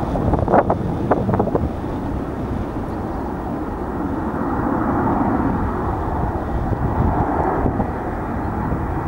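Twin jet engines of an Air China Airbus A330 at takeoff thrust during the takeoff roll: a steady rushing noise that swells a little in the middle. Gusts of wind buffet the microphone near the start.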